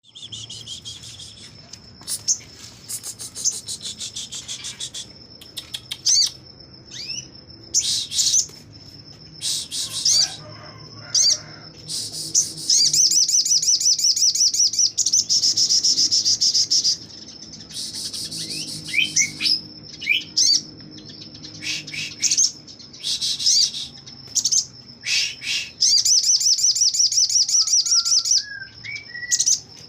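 A sogon bird singing loudly in the fast, rattling 'shooting' style: quick high-pitched trills and short sharp notes, with two long rapid bursts in the middle and near the end. A faint steady high tone runs underneath.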